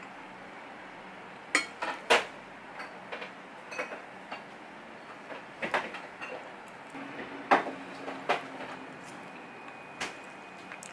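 Stainless steel chopsticks clicking and tapping against a ceramic plate, a dozen or so short, sharp clicks at irregular intervals, the loudest about two seconds in and again about seven and a half seconds in.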